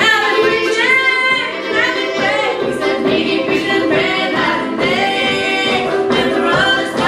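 Old-time string band singing: several voices, women's leading, sing held notes in close harmony, with banjo accompaniment underneath.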